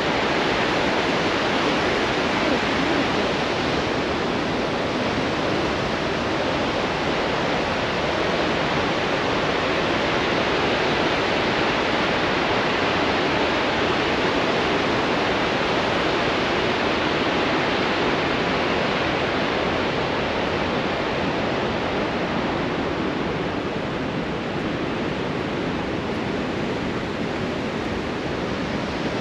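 The Androscoggin River's Great Falls in high flow: a steady, unbroken rush of whitewater pouring over the falls, a little softer in the last few seconds.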